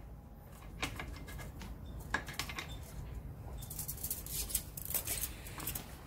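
Light metallic clicks and clinks from a copper brake pipe with its union being handled at a vise-mounted brake-pipe flaring tool. A few separate clicks come first, then a quick run of small rattling clinks in the second half.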